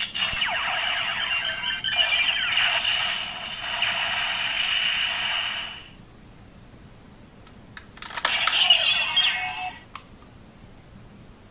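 Ziku-Driver toy transformation belt playing its electronic finisher sound effects through its small speaker, with sweeping tones, for about six seconds. About eight seconds in, a couple of plastic clicks come with a second short burst of electronic sound from the belt.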